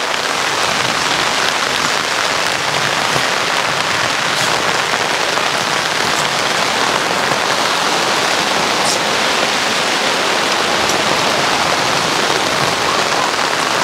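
Heavy rain falling steadily on the fabric awning and canopy overhead, a dense, even hiss with a few individual drips ticking through it.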